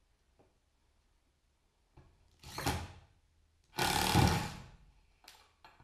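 Cordless drill driving screws into ebonized oak support strips: two short bursts about a second apart, the second louder, with a few light clicks and knocks of handling around them.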